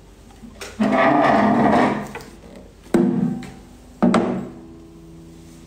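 Acoustic guitar being handled and moved: a rough jangle across the strings lasting about a second, then two knocks on the body about three and four seconds in, each leaving the open strings ringing.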